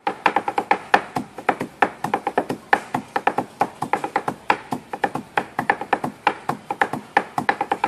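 Fast rhythmic chopping of sisig with choppers on a board, about five to seven sharp strikes a second in drum-like patterns, each strike ringing briefly.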